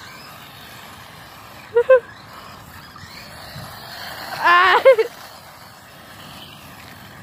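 Small electric motor of a radio-controlled short course truck whining faintly, rising and falling in pitch as the truck drives and turns on asphalt. Two short, high-pitched vocal cries are the loudest sounds, one about two seconds in and a longer one about five seconds in.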